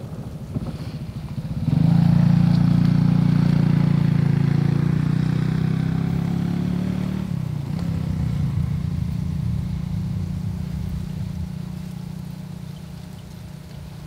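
A motor vehicle's engine comes in suddenly about two seconds in and runs loud and steady. Its pitch drops slightly at about seven seconds, and then it slowly fades away, as a vehicle passing by would.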